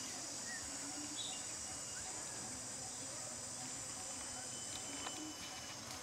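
Steady high-pitched chorus of insects in dry forest, with a few faint short chirps over it.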